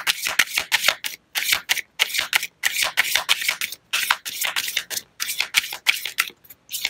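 A deck of tarot cards being shuffled by hand: quick papery flicks of cards, about five a second, in runs broken by brief pauses.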